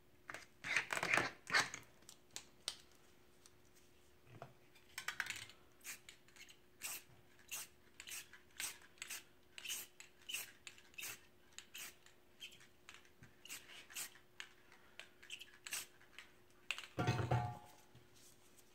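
Scraping on paper at the start as a tool works the fresh spray paint, then a spray paint can being shaken, its mixing ball clacking about three times a second. A heavier knock near the end.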